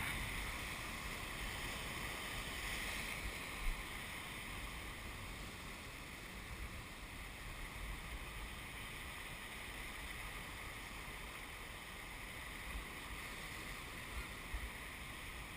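Steady rush of large surf breaking offshore, with wind rumbling on the microphone.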